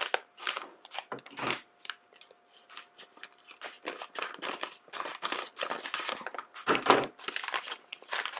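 A plastic blind-bag packet being crinkled and torn open by hand, with irregular bursts of crackling and rustling.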